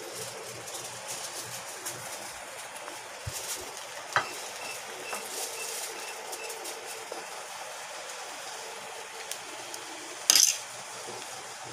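A metal fork stirring and tossing palabok noodles in an aluminium foil tray: soft scraping with light clinks and a sharp click about four seconds in. There is a brief louder rustle near the end.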